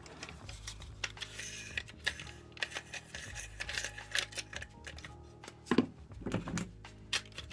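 Clicks and light metallic clinks as the steel wheel guard of a switched-off angle grinder is rotated and slid off its gear head, with a few louder knocks about six seconds in.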